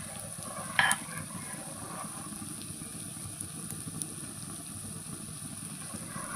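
Khichdi cooking in ghee in a pan, sizzling steadily, with a spoon striking the pan once about a second in.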